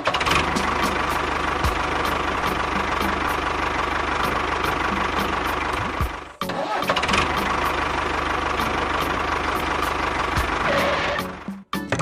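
Engine running, heard in two stretches with a brief break a little past halfway, then cutting off just before the end, over music with a steady beat.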